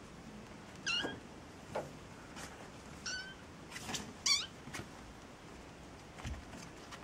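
Maine Coon kittens mewing during rough play: about four short, very high-pitched squeaky calls, the loudest and most wavering a little past four seconds in, with a few light taps between them.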